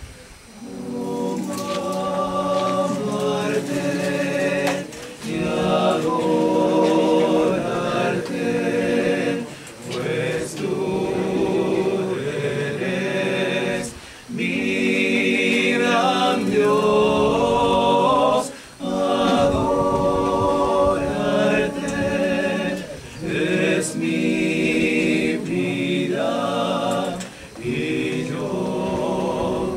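All-male a cappella vocal group of five men singing a church song in close harmony, in phrases of about four to five seconds with short breaks between them.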